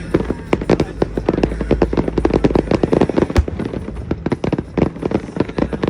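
Fireworks going off in a rapid, dense barrage, several sharp bangs and cracks a second with no pause between them.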